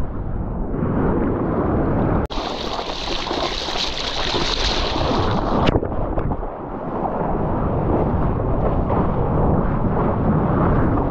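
Seawater rushing and splashing around a water-level action camera, with wind buffeting the microphone as a low rumble. The sound changes abruptly about two seconds in, adding a bright hiss, and changes again near six seconds.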